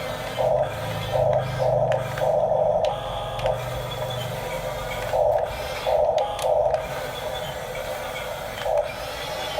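Electric drive motors and gearboxes of a Huina 1569 radio-controlled toy bulldozer whirring in short bursts, about eight spurts, with gaps as the controls are pulsed.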